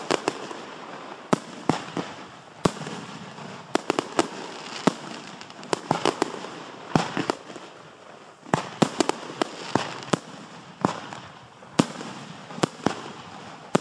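A fireworks display of Starbright cakes and aerial shells firing and bursting: a rapid, irregular series of sharp bangs, sometimes several within a second, with some louder single reports among them.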